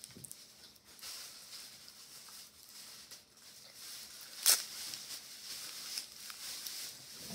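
Light rustling and crinkling of a candy wrapper being handled, with scattered small clicks and one sharp click about four and a half seconds in.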